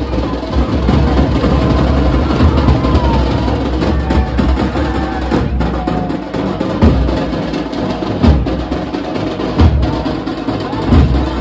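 Music dominated by drums: a heavy, dense percussion texture with a strong low drum beat, and hard hits recurring about every second and a half in the latter half.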